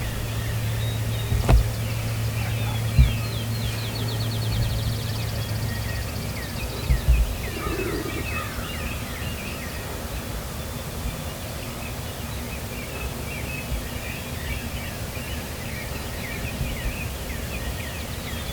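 Songbirds chirping and trilling in a morning chorus. A steady low hum runs under it for the first six seconds, and a few low thumps are heard, the loudest about seven seconds in.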